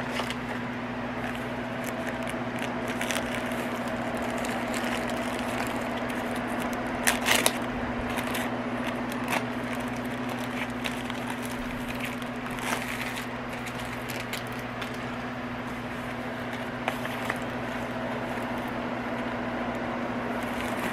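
Packaging of a diamond painting kit being handled: scattered crackles and small clicks, loudest in a short cluster about seven seconds in, over a steady low hum.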